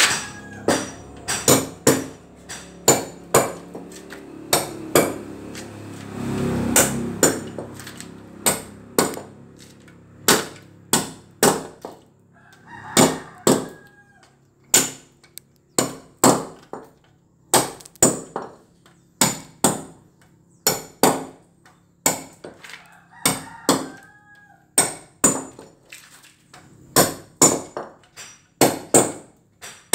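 A hammer striking a concrete floor over and over, chipping and roughening the cement so the tiles will stick. The blows come at an uneven pace, about one or two a second. A bird calls twice in the background, each call lasting over a second.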